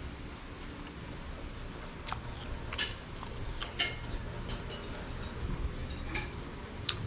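A person eating: chewing with scattered sharp clicks and smacks, the loudest a little under four seconds in.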